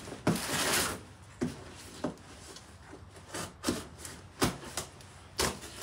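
Cardboard shipping box being opened by hand: a longer scrape of cardboard early on, then a scattered series of short scrapes, rustles and clicks.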